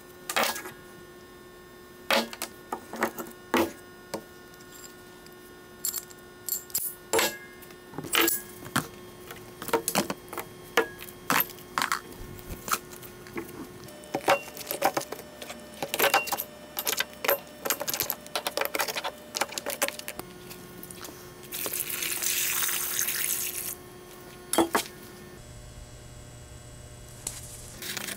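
Rusty metal parts of an antique Ford Model TT screw jack clinking and knocking as they are taken apart and set into a plastic tub, over a steady background hum. About three-quarters of the way through, water runs into the tub for a couple of seconds.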